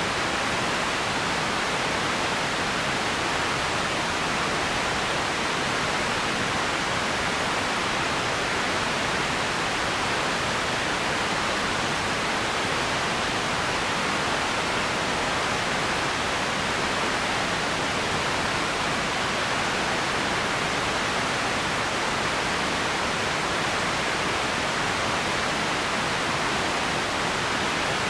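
Empty ambience noise bed: a steady, even hiss with no distinct events, unchanging throughout.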